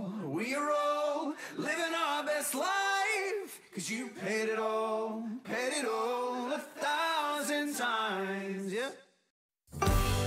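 Recorded song with a sung vocal line and almost no bass, which stops about nine seconds in. After a moment of silence a new piece of music with a strong bass starts near the end.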